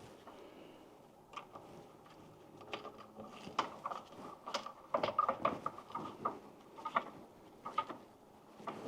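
Faint, irregular clicks and taps of hands, wire and screwdriver working at a GFCI receptacle's terminal screws as the neutral wire is fastened; they come more often from about three seconds in.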